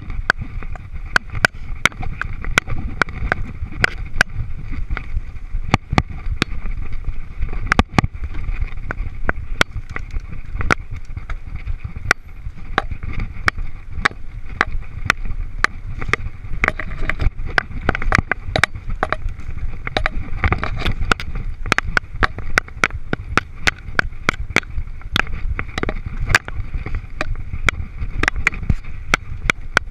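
Mountain bike ridden along a bumpy grass-and-dirt trail: a steady rumble of tyres and wind, with frequent sharp clicks and rattles as the bike jolts over the ground.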